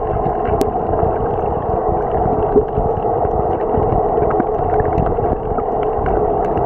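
Underwater ambience heard from below the sea surface: a steady, muffled rushing noise with scattered faint clicks, and one sharp click about half a second in.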